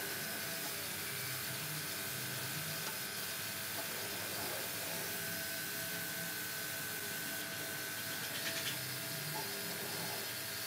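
Gravity-feed compressed-air spray gun hissing steadily as it sprays gloss PU finish, with a faint steady whistle that stops about eight seconds in.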